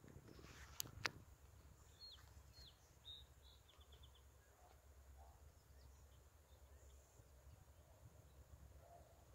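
Near silence outdoors: a low steady rumble, two sharp clicks about a second in, and a few faint bird chirps and a short trill a couple of seconds later.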